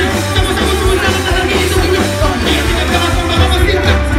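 Loud live band music through a PA system, with a vocalist rapping into a microphone.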